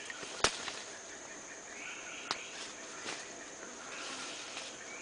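Steady drone of tropical forest insects, with a sharp snap about half a second in and fainter snaps a couple of seconds later.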